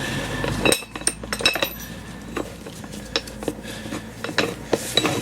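Steel workshop parts, a hub puller and tools, clinking and knocking against each other as they are handled. There is a louder ringing knock about three quarters of a second in, then a scatter of short clinks.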